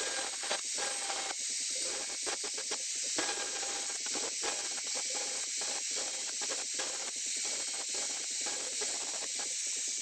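Electric angle grinder grinding a stainless-steel piece: a steady, noisy grind with a faint motor whine underneath.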